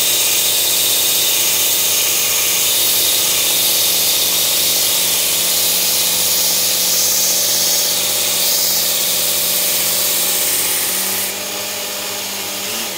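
Work Sharp Ken Onion belt sharpener with the blade grinding attachment running a coarse abrasive belt: a steady motor hum under the hiss of a steel knife edge being ground on the belt, raising a wire edge. The sound eases about eleven seconds in and cuts off at the very end.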